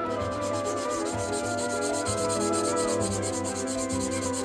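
A steel Damascus chef's knife blade being scrubbed by hand with a small abrasive pad in rapid, even back-and-forth strokes, over background music.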